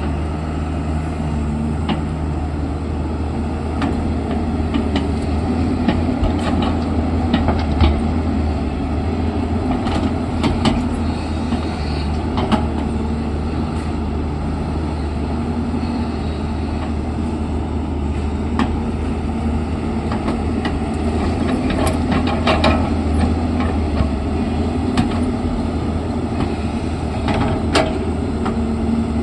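Diesel engine of an earthmoving machine running steadily while digging, with scattered clanks and knocks throughout.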